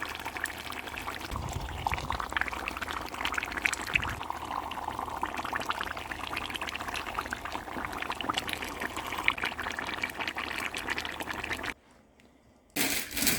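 Garden egg sauce simmering in the pot: a steady wet bubbling with fine crackles that cuts off suddenly about twelve seconds in, followed by a louder burst of sound near the end.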